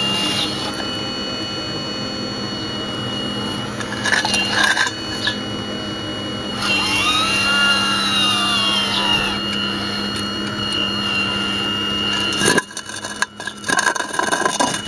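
RC scale model Hitachi 870 excavator's motors whining steadily. Midway the whine rises and falls in pitch for a few seconds as the boom moves, with a short burst of clatter about four seconds in. Near the end the whine drops away and irregular knocks and scraping of concrete rubble follow.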